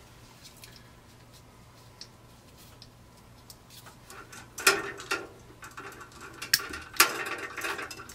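Hand tools and wiring being handled on a sheet-metal fluorescent fixture: a few faint ticks at first, then from about halfway a run of louder metallic clicks and scrapes as wire cutters are worked on the ballast wires.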